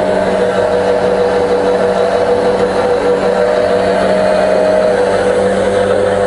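Power feed motors on a Bridgeport milling machine's axes running together with a steady motor and gear whine. Part of the whine drops out about five seconds in.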